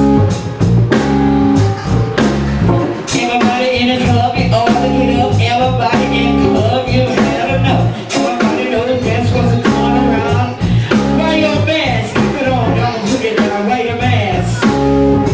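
Live band playing: a singer at the microphone over guitar, bass and drums, with a steady drum beat.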